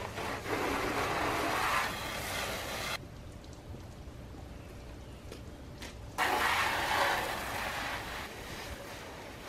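Water spraying from a garden hose nozzle onto a car, a steady hiss. It stops suddenly about three seconds in and comes back louder about six seconds in, then fades.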